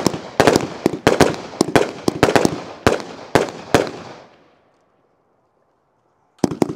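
Route 66 500-gram firework cake firing: a rapid series of sharp shot reports, about three a second, fading out about four seconds in. After a short silence the reports start again near the end.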